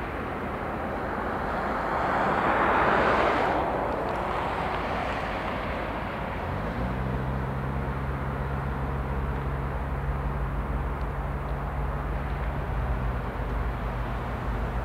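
A passing vehicle rises and fades in the first few seconds. About six seconds in, a steady low hum of a diesel locomotive engine begins suddenly and carries on with a rumble underneath.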